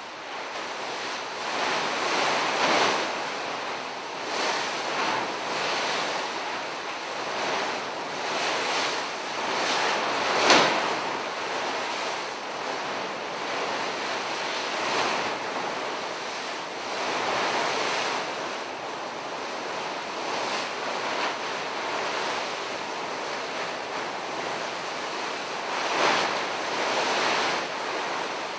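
Large sheets of paper being crumpled and rustled continuously by a performer wrapped inside them, the noise swelling and ebbing every second or two. A sharp, loud crackle of paper stands out about a third of the way through, with another strong surge near the end.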